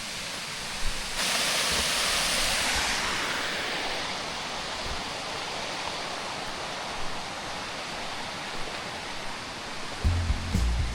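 Waterfall rushing: a steady hiss of falling water that jumps louder about a second in and then eases a little. Music comes in near the end.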